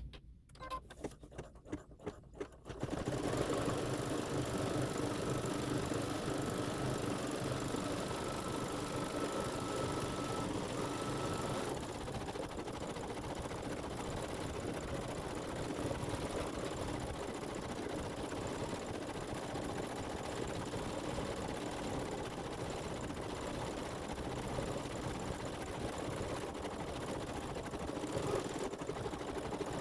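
Embroidery machine starting up after a few light clicks, then stitching steadily as it sews out the fur trim.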